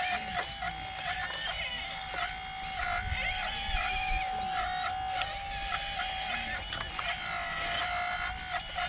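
RC excavator's electric hydraulic pump whining steadily at one pitch, dipping briefly now and then as the hydraulics take load. Birds chirp over it.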